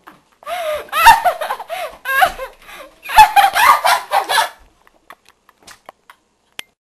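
High-pitched laughter in two long fits with a short break between them, followed by a few faint clicks near the end.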